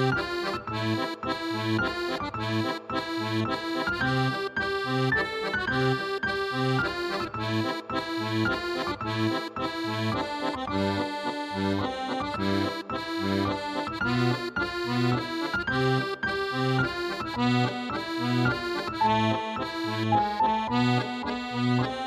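Background music with a steady bass-and-chord beat, about two bass notes a second under a lively melody.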